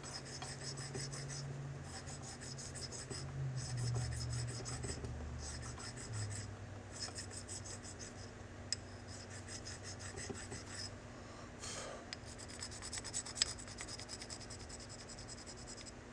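A hand stone rubbed in quick short strokes over the steel of a Webley revolver, smoothing the top of a pin left as a rivet. The strokes come in several runs of one to three seconds, with short pauses between.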